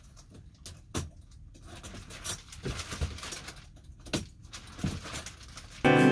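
A shower curtain being unhooked from a copper pipe rod: scattered light clicks and knocks of the hangers on the pipe, with rustling of the curtain. Acoustic guitar music cuts in loudly near the end.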